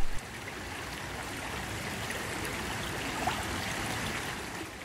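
Mountain stream rushing and splashing over rocks, a steady even rush of water.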